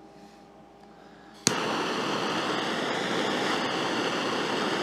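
Handheld gas torch lit with a sharp click about a second and a half in, then hissing steadily as its flame burns.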